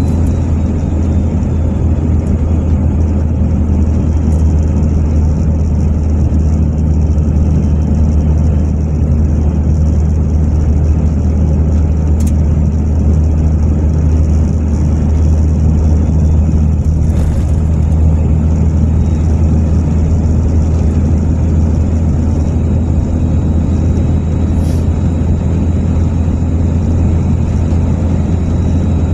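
Steady low drone of a car driving at road speed, heard from inside the cabin: engine and tyre noise with no change in pace, and a few faint ticks.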